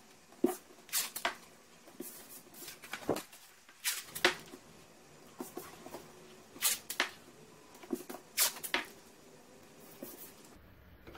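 Blue painter's tape being pulled and torn off the roll and pressed down over a sheet of cardboard by hand: a dozen or so short, sharp rips and rustles at irregular intervals.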